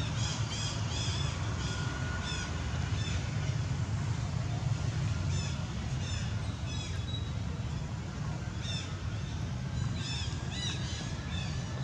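Small birds chirping in short, high runs of two to four notes every second or two, over a steady low rumble.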